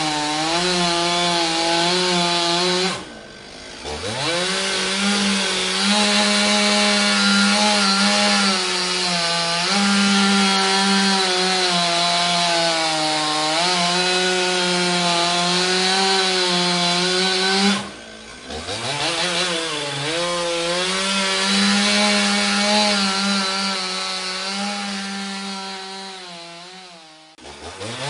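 Two-stroke chainsaw running at high revs and cutting wood, its pitch wavering under load. Three times the throttle is let off: the engine sound falls away briefly, then revs back up.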